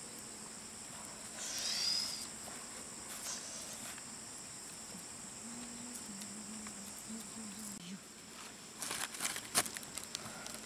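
Steady high-pitched insect drone. A brief chirp comes about a second and a half in, and a few sharp clicks come near the end.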